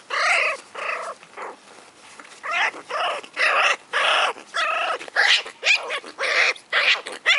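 American Hairless Terrier puppies, four weeks old, yelping and whining as they play, a quick string of about a dozen short, high yelps.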